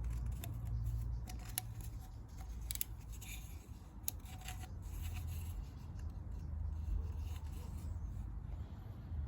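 Hands handling a small engine part: soft rubbing and a few sharp clicks, over a low steady rumble.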